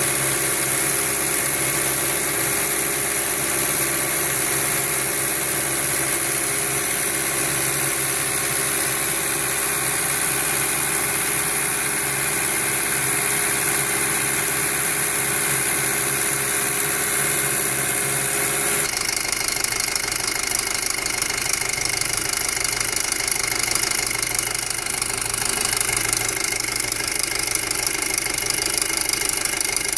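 2007 Volkswagen Passat 2.0T turbocharged four-cylinder engine running steadily with the loud, abnormal engine noise the owner is recording. The sound changes abruptly about two-thirds of the way through.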